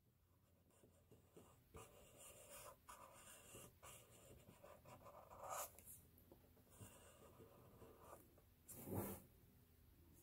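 Faint scratching of a black marker tip drawing on paper, in short irregular strokes, with two slightly louder strokes about five and a half seconds in and near the end.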